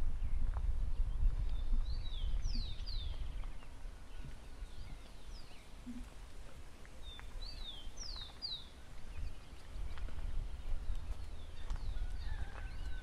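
Birds calling in short, quick notes that slide downward, often two or three in a row, over a low, uneven rumble.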